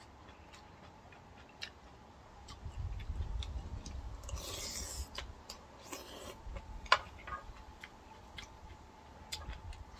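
Someone eating a bowl of ramen with rice: scattered light clicks and taps of utensils against the bowl, with a brief noisy rush about four and a half seconds in.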